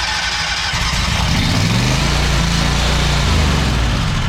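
Wright Stander ZK 52-inch stand-on mower's engine running just after starting on a new starter motor, which shows the no-start fault was the starter. The engine rises in speed about a second in, holds steady, and eases back near the end.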